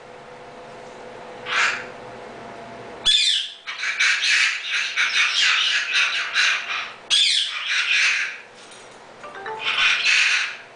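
Goffin's cockatoo calling: one short call about one and a half seconds in, then long runs of loud, rapid, repeated calls from about three to eight seconds, and another short run near the end.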